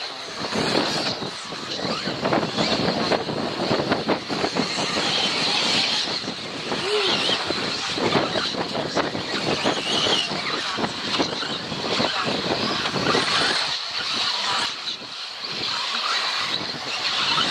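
Radio-controlled 4WD off-road buggies racing on a grass track: a steady high motor whine over a constant rushing noise, with short rising and falling pitch sweeps as the cars accelerate and slow.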